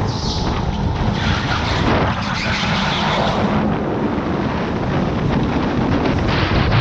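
Electric go-kart driven at speed, heard from the driver's seat: a steady rumble of tyres and chassis on the track, with wind buffeting the microphone.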